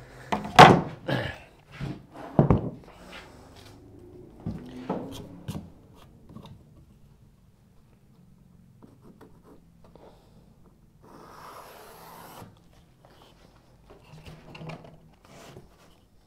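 Aluminium saw guide rail being handled and set down on a door blank: a few loud knocks and clatter in the first three seconds, then lighter knocks. A brief scraping rub about eleven seconds in, a pencil marking the door edge, and a few light taps near the end as the plunge saw is set on the rail.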